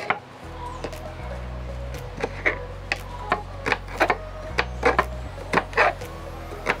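Kitchen knife chopping green bell pepper against a plastic cutting board: irregular sharp knocks, about two a second, over background music with a low bass line.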